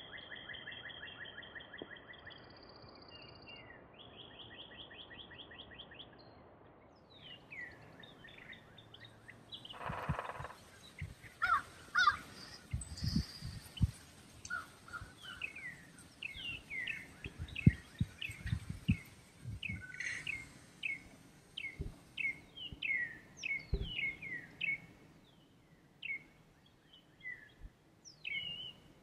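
Wild birds chirping and singing: a rapid repeated trill for the first few seconds, then many quick downward-sweeping chirps from several birds, with a few soft low thumps in the middle.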